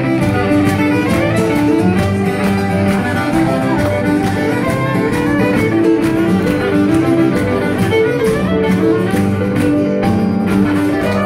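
Live fiddle playing a lively Acadian dance tune, with strummed chordal backing keeping a steady beat underneath.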